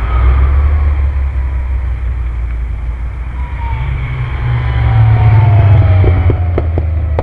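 Classic Mini Coopers' four-cylinder A-series engines driving past: one car going away, then a second coming up and passing close about five seconds in, louder as it goes by, with a thin whine that falls in pitch. A few sharp clicks near the end.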